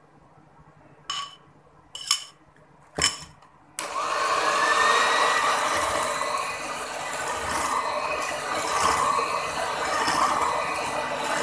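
Three short knocks about a second apart, then an electric hand mixer switches on, its motor whining up in pitch and then running steadily as the beaters whip an egg into creamed butter and sugar in a glass bowl.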